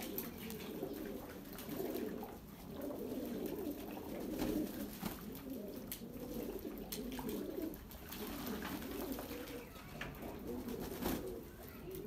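A flock of domestic pigeons cooing, many birds at once, their calls overlapping without a break, with a few brief sharp taps among them.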